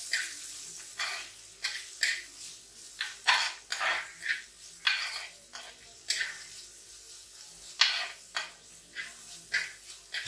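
A steel spoon scraping and stirring sliced onion and green chillies frying in oil in a pot, in irregular strokes about two a second, with the oil sizzling softly underneath. The onion is just starting to fry before it browns.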